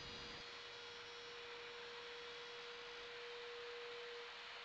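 Faint, steady single-pitched hum of a small hand-held router spinning a 6 mm bit as it cuts a binding channel along the guitar's rim, over a soft hiss. The hum stops shortly before the end.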